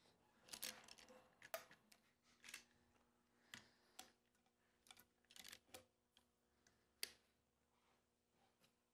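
Light metallic clicks and clinks of valve springs, retainers and keepers being fitted onto a 6.7L Cummins cylinder head with a lever-type valve spring compressor. About a dozen faint, irregular clicks, the sharpest about seven seconds in.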